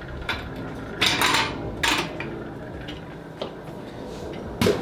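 Stainless steel fittings clanking and clinking as a clamped steel-and-glass assembly is taken off the top of a stainless brewing vessel: several separate metal knocks, the loudest clatter about a second in and a sharp one near the end.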